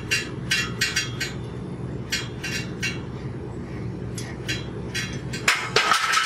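Small metal clicks and clinks from a bicycle bottom-bracket lock nut being turned off by hand, about three a second at first and then sparser. Near the end comes a short burst of metallic scraping and clinking as the nut and its toothed locking washer come off the axle.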